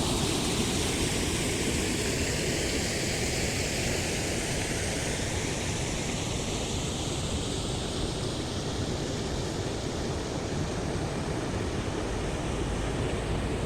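Waterfall's water rushing in a steady, even noise.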